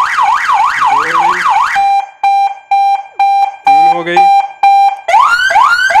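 Electronic wireless police-style siren cycling through the tunes on one remote button: a fast yelp rising and falling about three times a second, switching about two seconds in to a steady beep pulsing about twice a second, then near the end to quick rising whoops repeated about three times a second.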